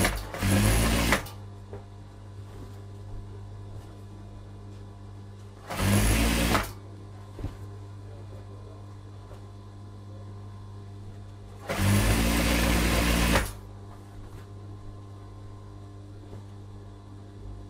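Industrial sewing machine stitching seams in three short runs, each about a second long and the last a little longer, each picking up speed before it holds steady. A steady low hum fills the gaps between the runs.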